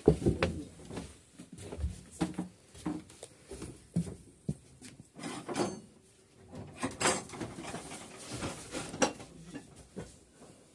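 Scattered knocks, thumps and rustles of people moving about a cluttered shed, including footsteps on wooden floorboards.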